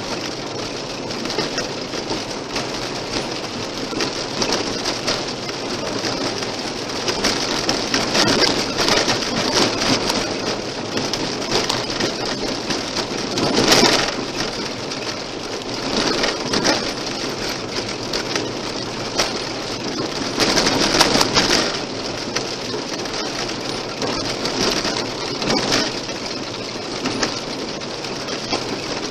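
Car tyres running over a gravel road: a steady, dense crackling of loose stones and grit under the wheels, swelling louder several times, most clearly about 14 and 21 seconds in.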